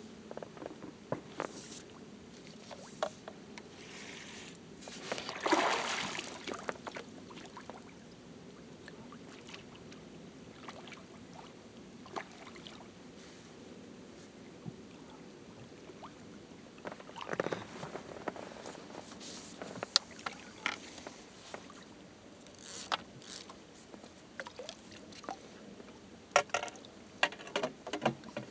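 Fixed-spool fishing reel being wound as a hooked bream is played in, with a loud splash of the fish at the surface about six seconds in and another a little past halfway. Scattered sharp clicks and knocks of tackle and landing net come near the end.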